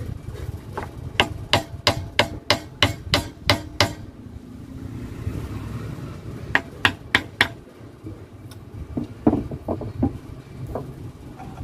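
Hammer tapping metal on a Sumo SR150 gasoline engine, light taps to knock a part loose: a quick run of about nine strikes, roughly three a second, then a short run of four and a few softer knocks.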